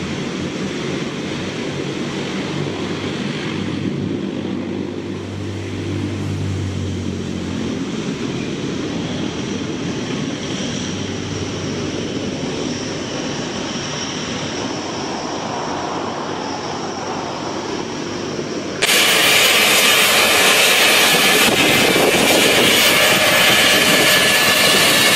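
Antonov An-22's four turboprop engines with contra-rotating propellers running as the transport lands and rolls out: a steady drone with a high whine above it. About nineteen seconds in it cuts abruptly to a louder Eurocopter EC135 helicopter's turbine and rotor running on the ground.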